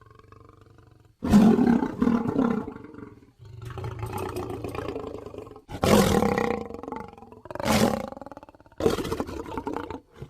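Film sound effect of a tyrannosaur-like dinosaur roaring: a run of loud roars starting about a second in, with a quieter growl between the first two and a roar near the end that rises and falls in pitch.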